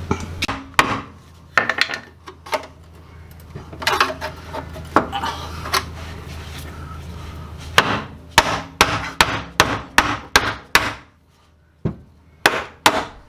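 Hammer strikes on the car's rear sheet metal where a clearance cut has just been made. Scattered knocks at first, then a quick run of blows about three a second in the second half, over a low steady hum that stops partway through.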